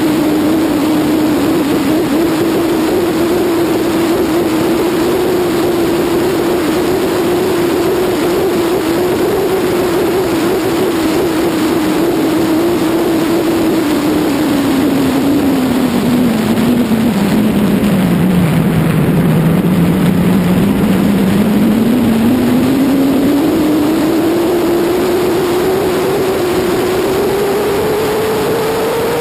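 BMW F800GS's 798 cc parallel-twin engine running under way with wind noise rushing past. The engine note holds steady, drops as the bike slows a little past halfway, then climbs steadily as it accelerates away.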